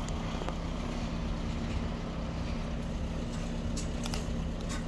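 Steady low mechanical hum with a couple of level tones in it, over which come a few faint short crunches from cats eating dry kibble, two of them close together near the end.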